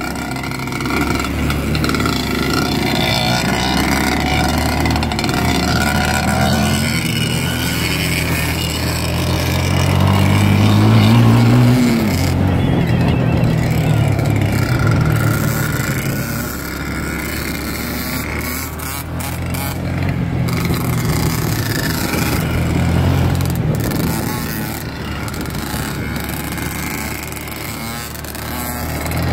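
Dirt bike engine running while riding, its note rising and falling with the throttle; it revs up to a peak about eleven seconds in, drops back, then picks up again.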